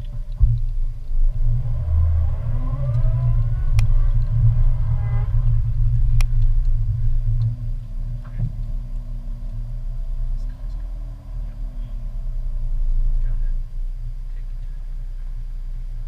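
Car running, heard from inside the cabin: a steady low engine and road rumble with a few sharp knocks and some faint gliding tones. It settles to an even hum near the end.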